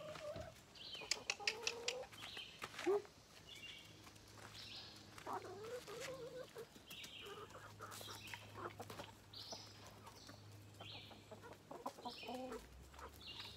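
Chickens clucking as they crowd in for thrown bread: short calls every second or so, with a flutter of wings.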